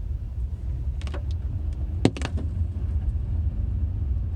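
Low steady rumble of engine and road noise inside the cabin of a 2017 Honda Accord V6 on the move, with a few sharp clicks about a second in and a louder cluster of clicks a little after two seconds.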